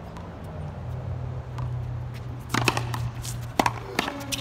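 Racquetball rally on a concrete wall court: sharp pocks of the hard rubber ball off strung racquets and the concrete wall, about five hits starting roughly halfway through, over a steady low hum.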